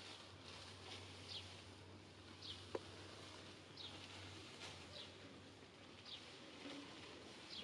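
Faint, short, high chirps that fall slightly in pitch, repeating about once a second over a quiet outdoor background, with one sharp click a little before the middle.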